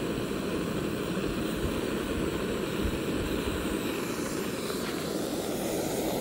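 MSR Pocket Rocket Deluxe canister stove burning on an MSR IsoPro gas canister: the burner's steady rushing hiss.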